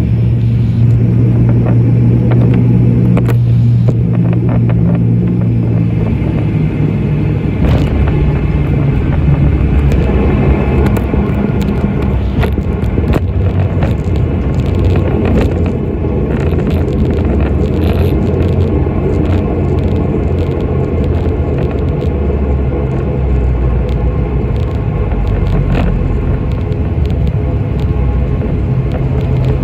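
Cabin noise of an ATR 42-600 turboprop airliner landing: the steady low drone of the propellers and Pratt & Whitney PW127 engines. About six seconds in, at touchdown, the drone changes to a broader rumble through the runway rollout, with scattered clicks.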